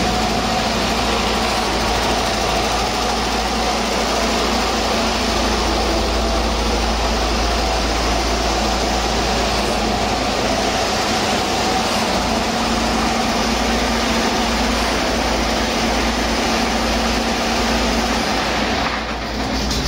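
A 2017 Detroit Diesel DD15 inline-six turbodiesel truck engine running steadily at a constant speed on a test run.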